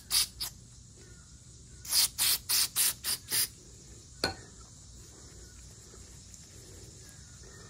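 Aerosol cleaner spraying in short hissing bursts through a red extension straw into a small clogged transmission pressure relief valve, flushing it clean: two quick bursts at the start, then a run of six about a third of a second apart. A single sharp click follows about four seconds in.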